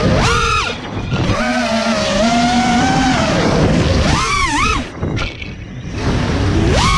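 5-inch FPV racing quadcopter's brushless motors whining, the pitch sweeping sharply up and down as the throttle is punched and eased: steep rises about a third of a second in, about four seconds in and again near the end. Around five seconds the throttle is briefly cut and only rushing air is heard before the motors spool back up.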